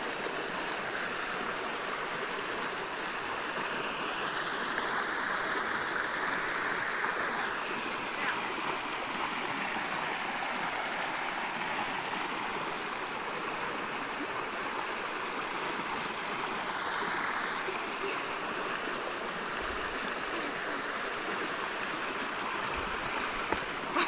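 A shallow mountain stream rushing and splashing over smooth rock slabs: a steady, even rush of water. A few brief, sharp knocks near the end.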